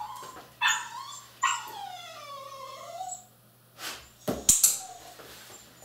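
Dog whining and yipping: a couple of short yips, then a long whine that slides down in pitch and back up. A few sharp taps or clicks follow about four and a half seconds in.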